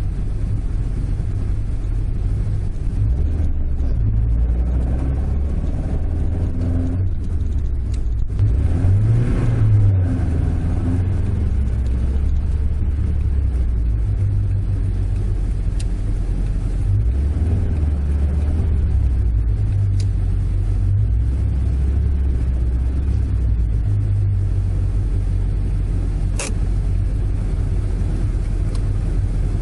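Toyota AE86's five-valve-per-cylinder 4A-GE engine heard from inside the cabin, running at low revs with a few rises and falls in engine speed as the car is driven slowly and brought to a stop, then idling. A single sharp click near the end.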